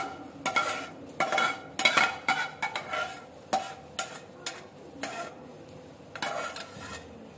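Metal spatula scraping and knocking against the inside of a pressure cooker in about a dozen irregular strokes with a metallic ring, as fried rice and vegetables are scraped out into a steel bowl; the strokes thin out in the second half.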